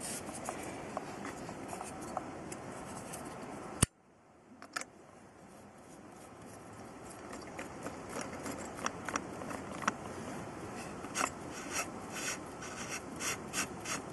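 Camp cookware and gear being handled: light clicks, taps and rubbing of small metal and plastic parts. A sharp click comes about four seconds in, after which the background hiss drops away and slowly comes back. The taps come thicker near the end.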